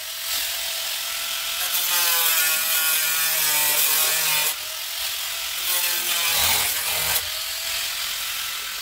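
Angle grinder grinding the steel sill of a car body shell. It runs in several passes that shift in level about every two to three seconds, and its pitch wavers as the disc bites into the metal.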